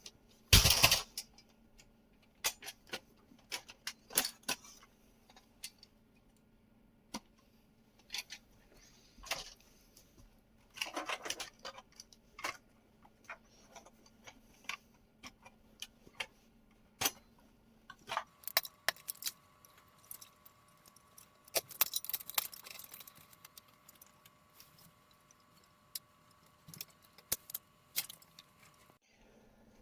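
Scattered clicks, taps and short metallic rattles of a desktop PC being taken apart by hand, its parts, screws and cables handled and pulled out, with two longer bouts of rattling.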